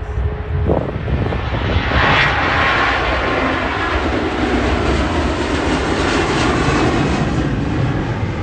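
Airliner's engines passing close by, coming in loud about two seconds in and holding steady, with wind buffeting the microphone.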